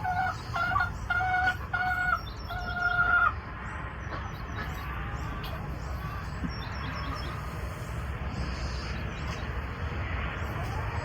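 A rooster crows in several pitched syllables over the first three seconds, the last one drawn out. After that, small birds chirp faintly over a steady low background noise.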